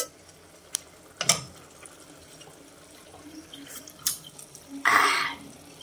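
A couple of light clicks, then a short slurp about five seconds in as the adobo sauce is tasted.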